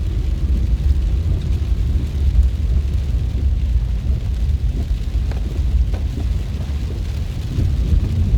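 Steady low rumble of a car driving on a wet road in heavy rain, with rain noise over it and a few faint clicks about midway.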